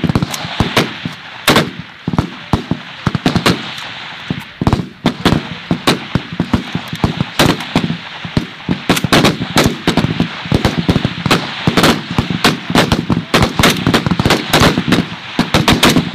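Many 5.56 mm M16A2-type rifles firing along a firing line: an irregular, overlapping crackle of sharp shots, several a second.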